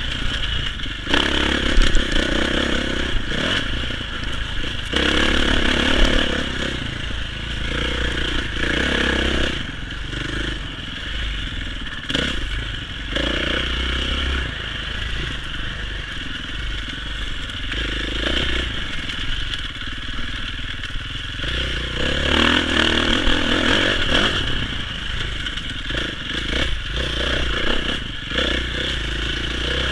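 Dirt bike engine running under load on a trail, the revs surging as the throttle opens: near the start, again from about five seconds in, and once more a little past twenty seconds. Heard through a helmet-mounted camera, with rattle and clatter from the ride.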